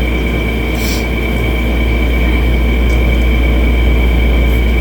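Steady low mechanical hum with a thin, steady high whine above it, and a brief hiss about a second in.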